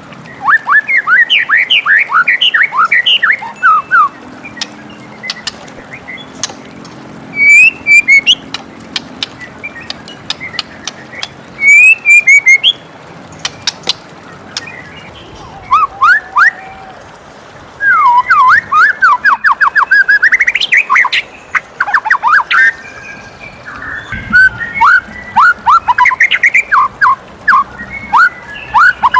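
White-rumped shama singing: phrases of rapid, steeply falling whistled notes, some lasting several seconds, with short pauses between, over a steady background hiss.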